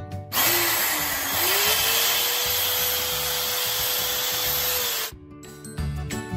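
Electric drill running as it bores into the screen door's frame for about five seconds: its motor pitch dips briefly, then rises and holds steady before cutting off suddenly. Background music plays just before and after the drilling.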